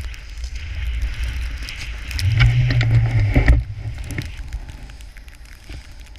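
Snowboard hissing and scraping through powder snow as the rider carves, with wind buffeting the pole-mounted camera's microphone in a low rumble that is heaviest from about two to three and a half seconds in.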